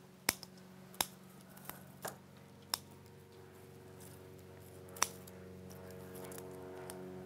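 Florist's scissors snipping woody berry stems: about six short, sharp cuts at irregular intervals in the first five seconds, over a faint steady hum.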